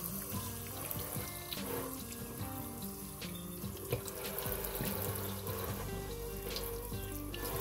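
Kitchen faucet spray running steadily into a stainless steel sink, splashing over a raw whole chicken as it is rinsed by hand.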